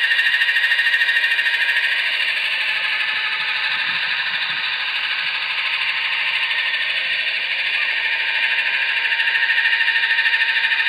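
Blade Nano S3 micro RC helicopter hovering close overhead: a steady high whine from its electric motor with the fast, even buzz of its spinning rotor blades. It fades a little in the middle as the helicopter climbs away and grows louder again near the end.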